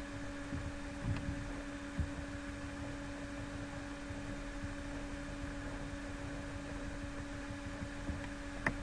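Steady low electrical hum with background noise, broken by a few faint clicks, one near the end.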